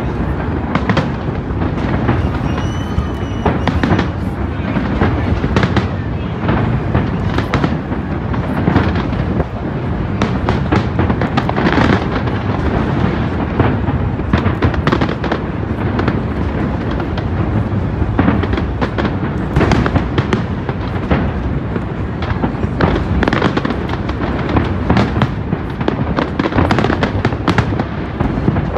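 Aerial fireworks display: a dense, continuous barrage of bangs and crackling with no let-up.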